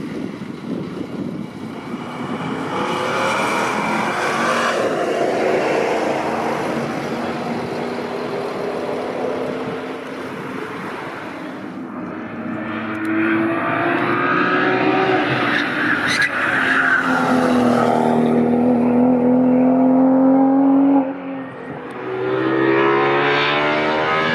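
Race cars passing one after another at speed, engines at high revs, each note rising as a car approaches and falling as it goes away. The sound changes abruptly twice, at cuts between passes.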